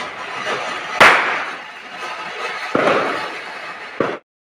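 Ground fountain firework spraying sparks with a steady hiss, while firecrackers go off in three sharp bangs: the loudest about a second in, then near three seconds and at four seconds. The sound cuts off abruptly just before the end.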